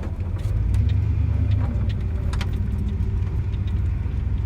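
Ford F-150 pickup running on the road, a steady low engine and road drone heard from inside the cab that swells briefly about half a second in, with a few light clicks and rattles over it.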